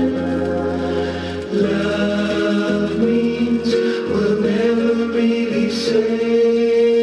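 Soft pop ballad music played from a vinyl record: slow, held chords with choir-like voices and no clear words, the chord changing every second or two.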